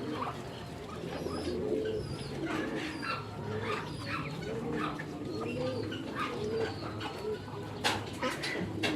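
A flock of birds calling at once, with many overlapping low cooing calls repeating and higher chirps above them; a couple of sharp knocks near the end.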